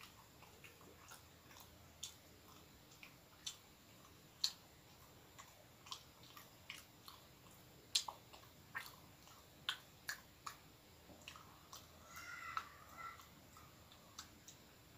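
Faint close-up chewing of soft filled bread, with irregular wet mouth clicks and smacks. There is a brief softer rustle about twelve seconds in.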